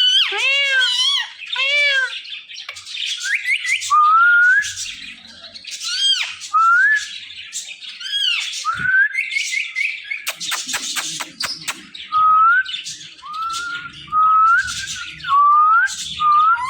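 Pet parrot calling: a few harsh arched squawks at the start, then a run of short rising whistles, with chirps and squawks in between.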